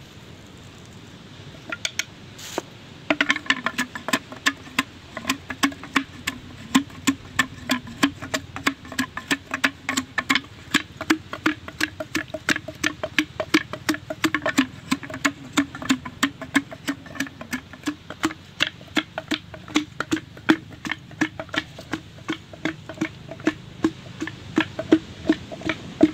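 Pestle pounding in a small mortar, a steady run of hollow knocks with a low ring to each strike, about three a second, starting a couple of seconds in. This is the spicy sauce for rujak being pounded.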